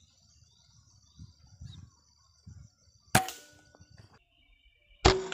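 Two sharp rifle shots about two seconds apart, each followed by a short ringing tail.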